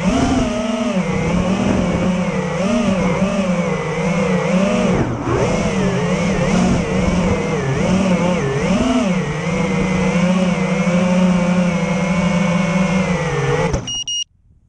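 FPV quadcopter's brushless motors whining as heard from its onboard camera, the pitch rising and falling with the throttle. The motors cut off abruptly near the end as the quad comes down, followed by a short high beep.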